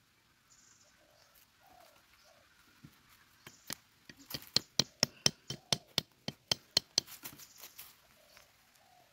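A machete knocking on bamboo: a quick run of about fifteen sharp taps, some three a second, starting about three and a half seconds in and stopping near the end, as a bamboo trap stake is tapped into place.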